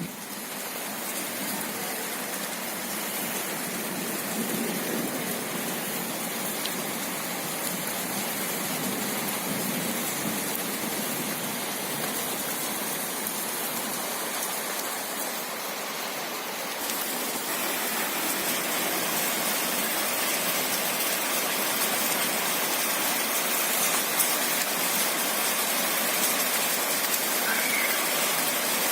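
Steady rain falling as a dense, even hiss, getting a little louder about halfway through.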